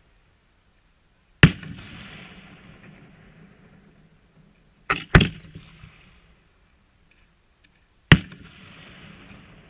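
Aerial firework shells bursting: a bang, then two in quick succession, then another, each followed by a fading hiss.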